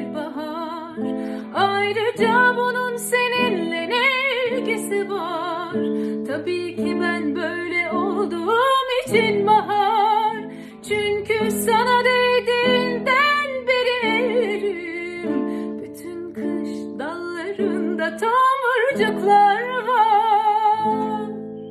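A woman singing a slow melody with vibrato, accompanying herself on a plucked acoustic string instrument. The instrument plays alone at first and the voice comes in about a second and a half in.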